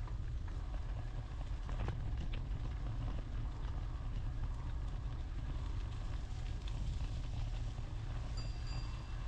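Wind buffeting the microphone during an e-bike ride, a steady low rumble with scattered small clicks and rattles. A short high ringing note comes near the end.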